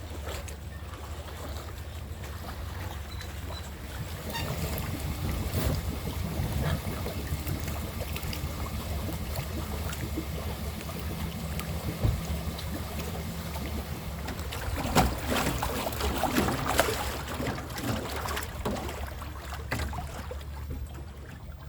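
Small fishing boat's motor running steadily, with water noise and wind on the microphone. A run of knocks and splashes comes about two-thirds of the way through.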